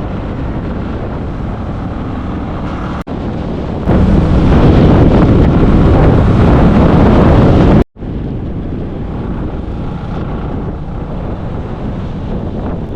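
Wind buffeting the microphone on a moving motorbike, mixed with the ride's road and engine noise. It gets much louder from about four seconds in and drops out suddenly near eight seconds.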